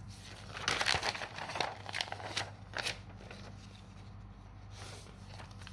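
Sheets of paper rustling and crinkling as a page is lifted off the table and moved aside, loudest in the first three seconds, then a few faint rustles and taps.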